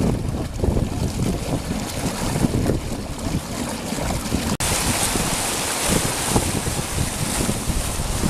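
Wind rumbling and gusting on the microphone beside swirling floodwater. After a brief dropout about halfway through, a steady rush of flooded creek water churning white through whitewater takes over.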